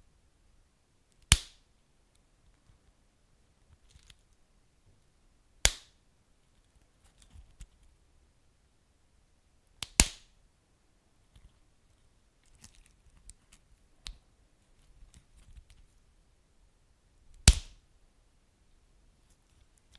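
Wood fire crackling: four loud, sharp pops a few seconds apart over faint scattered small crackles.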